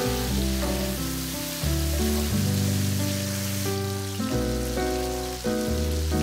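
Chicken pieces sizzling in a frying pan, a steady hiss, under background music of held chords and bass notes that change about once a second.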